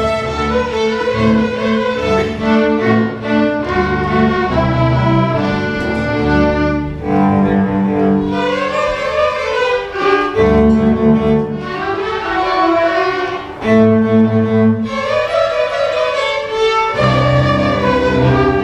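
Student string orchestra of violins, cellos and basses playing a lively fiddle-style piece, with bowed notes over a low bass line.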